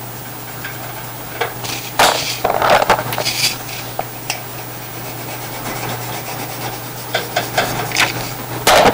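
Wax crayon scratching on paper, then a sheet of paper sliding and rustling on a desktop as it is turned, with a few light clicks and another loud rustle near the end. A low steady hum runs underneath.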